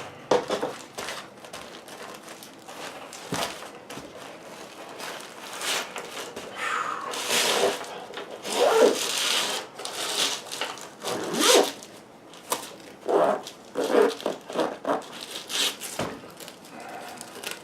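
Rustling, crinkling and scraping of first-aid supplies in plastic wrappers as they are handled and pushed into a small medical kit pouch. The noises come in irregular bursts, with a few longer rasping stretches near the middle.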